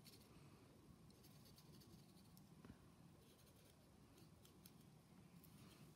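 Near silence, with faint light scratching and clicking: a plastic fork working acrylic paint onto a cardboard toilet-roll shape over a plastic lid.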